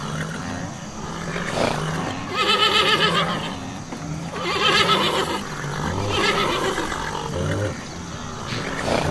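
Horses whinnying, one call after another about every two seconds, each a wavering, quavering neigh.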